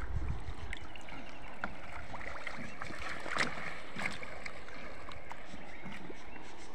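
Water lapping and gurgling around a bamboo raft as it is poled along a river, with a few small clicks and splashes, the loudest about three and a half seconds in.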